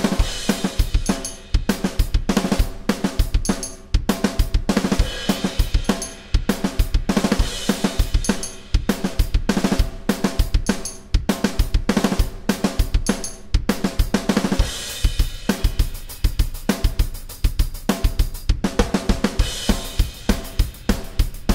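Roland electronic drum kit played alone in a steady rock groove of kick, snare and hi-hat. Partway through, a cymbal crash marks a change to a busier pattern.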